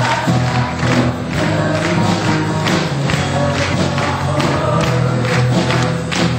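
Live band playing, electric guitar over a drum kit with a steady beat of drum hits.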